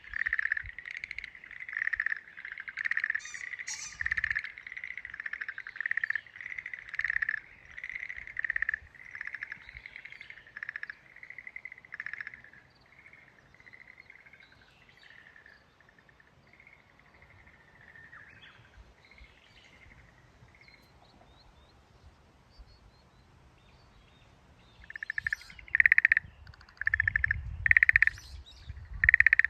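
Frogs calling: a steady series of pulsed croaks, about one to two a second, that fades out after about twelve seconds and starts up again loudly near the end.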